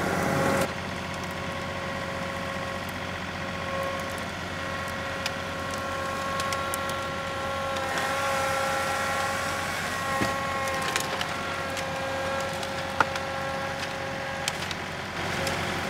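John Deere 2038R compact tractor's diesel engine running steadily under load as its loader grapple clamps and lifts a heavy brush pile. A few sharp cracks of branches snapping come through, the loudest a little before the end.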